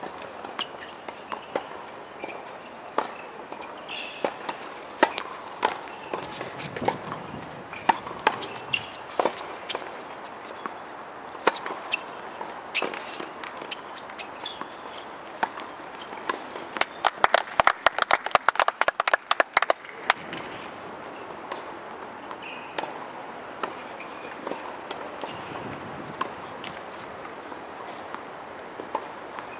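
Tennis balls being struck and bouncing on outdoor hard courts: scattered sharp pops through a steady outdoor background, with a fast run of light taps for about three seconds a little past the middle.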